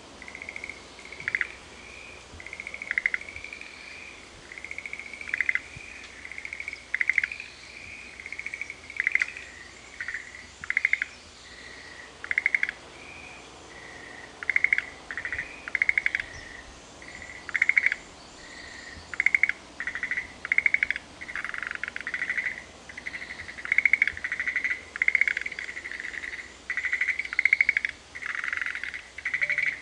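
Several frogs calling back and forth in a chorus: short pulsed calls, one or two every second, overlapping more densely in the second half.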